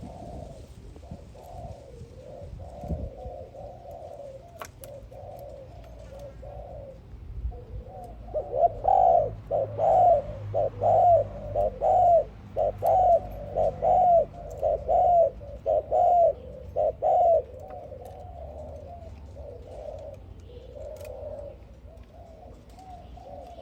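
Doves cooing: a soft, low cooing goes on throughout. From about a third of the way in to about three quarters through, a louder, regular run of coos comes at about two a second.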